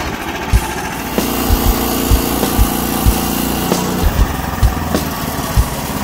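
Portable sawmill's 15 hp Lifan LF190F single-cylinder petrol engine running steadily as the bandsaw head is pushed through a log, under background music with a steady thumping beat.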